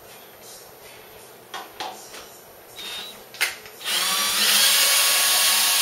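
Cordless drill fitted to the end of the mill's Y-axis ball screw: a few light clicks and knocks as it is seated, then about four seconds in it starts and runs steadily, spinning the ball screw to drive the table.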